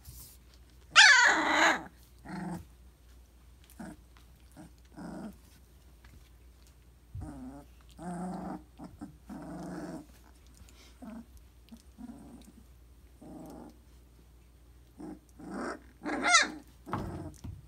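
Three-week-old Briard puppies growling and squealing at play, in short separate calls; the loudest is a high squeal about a second in, with another near the end.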